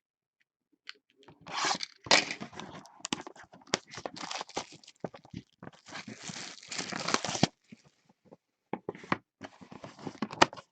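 Plastic wrapping on sports-card packaging being torn and crinkled. It comes as a string of rips and crackles starting about a second in, with a longer stretch of tearing near the middle.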